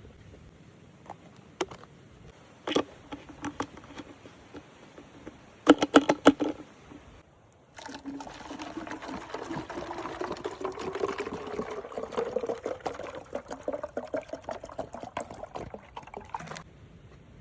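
A few knocks and clicks of things being handled, then liquid poured steadily into a container for about nine seconds, its pitch rising as the container fills, stopping abruptly near the end.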